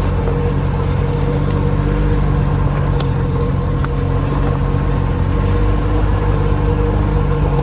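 A Jeep's engine running at a steady pace as it drives along, heard as a low, even drone from inside the cab, while it pulls a disabled RZR on a tow strap. There is one sharp click about three seconds in.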